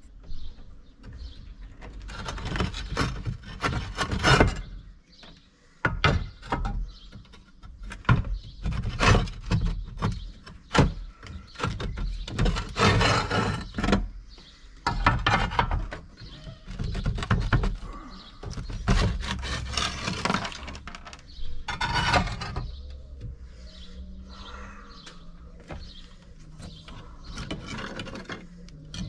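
Old clay barrel roof tiles being lifted and shifted by hand, knocking, clinking and scraping against each other and the roof in uneven bursts. The handling dies down about three-quarters of the way through.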